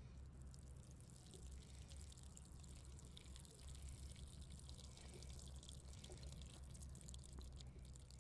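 Faint trickling and dripping of water drained off a tub of soaked feed pellets onto grass, with a steady low rumble underneath.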